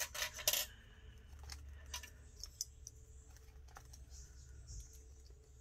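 Small clicks and taps of paper craft pieces being handled and shifted: a quick cluster of clicks in the first half second, then a few faint scattered ticks.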